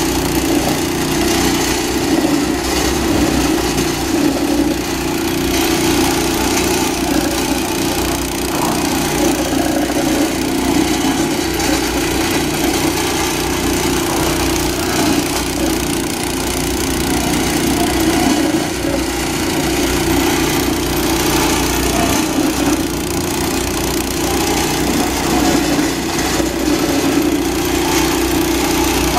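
Walk-behind asphalt roller's small petrol engine running steadily at one speed, with a dense rattling noise from the machine over it, as it compacts a fresh asphalt patch.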